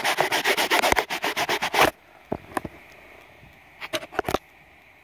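Handling noise from the camera lens being wiped: fast rubbing and scraping right against the microphone for about two seconds, then a few light knocks from handling the camera.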